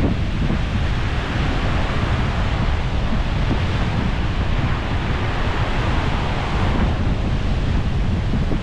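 Wind blowing on the microphone with a low, steady rumble, over the continuous wash of sea surf.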